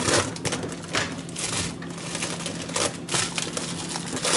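Plastic produce bags rustling and crinkling as vegetables are handled in a fridge's vegetable bin, with irregular clicks and taps.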